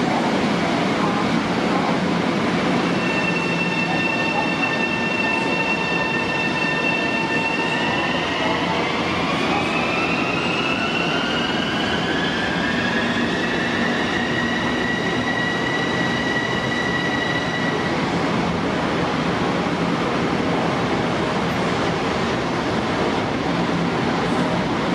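Long Island Rail Road electric multiple-unit train in an underground station: a steady rumble under a high electric whine from its propulsion. The whine holds one pitch, rises smoothly from about eight seconds in as the train gathers speed, levels off, then stops about eighteen seconds in.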